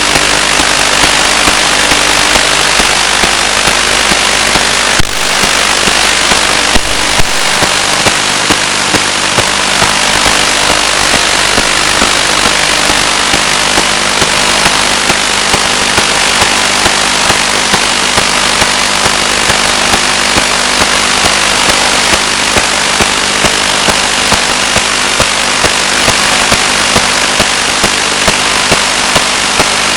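Loud, steady radio static hiss with a low hum underneath and short sharp clicks recurring about once or twice a second, as heard on the audio channel of an analog FPV video downlink.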